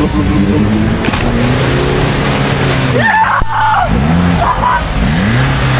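Off-road vehicle's engine revving under load. Its pitch holds fairly steady at first, then drops and climbs again several times in the second half.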